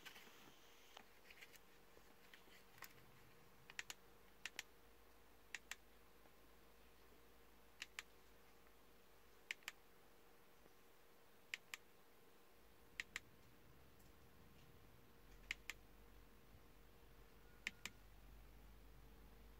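Short, sharp clicks of taps on a car head unit's touchscreen, mostly in quick double clicks every second or two, over a faint steady hum.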